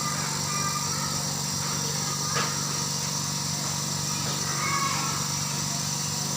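Izumi Max compressor machine running steadily with an even engine hum and a high hiss.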